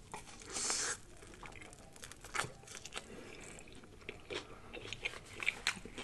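A person bites into a slice of thin-crust pizza, with a crunch about half a second in, then chews close to the microphone, making scattered soft smacking clicks.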